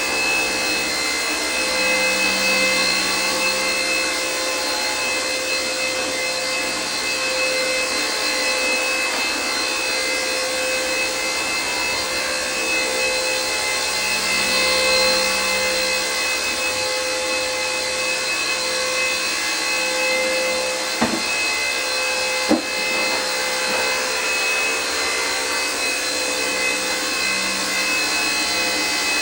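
WLtoys V931 AS-350 micro RC helicopter hovering: its electric motor and rotors give a steady whine and whir that hardly changes in pitch, the mark of a steady throttle holding a level altitude. Two short sharp knocks come about two-thirds of the way through.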